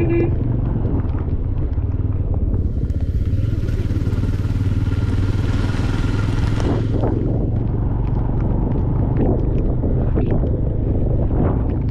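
Motorcycle engine running steadily while riding, its low drone constant throughout. A rushing hiss swells in about three seconds in and cuts off about seven seconds in.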